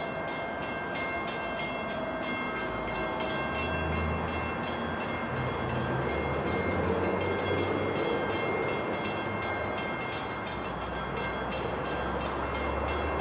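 A train approaching unseen: a low rumble that builds from about three seconds in, over a rapid ringing of several steady high tones.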